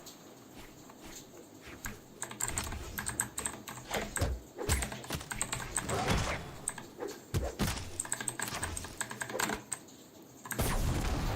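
Typing on a Vortexseries VX8 mechanical keyboard with clicky blue switches: rapid, irregular keystrokes in bursts.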